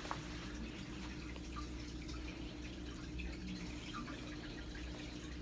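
Quiet room tone: a steady low hum with a few faint, soft ticks scattered through it.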